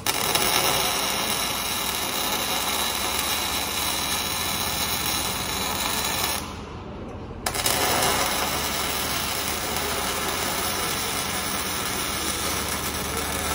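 MIG welding arc on steel, a steady sizzling crackle in two runs, breaking off for about a second just past halfway and then striking up again.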